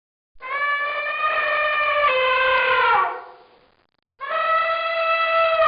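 An animal's long, brassy call, given twice. Each call holds a steady pitch for about two and a half seconds, then drops away as it ends.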